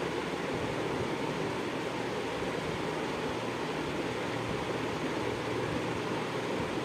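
Minced mutton frying in hot oil in a steel kadai: a steady sizzle.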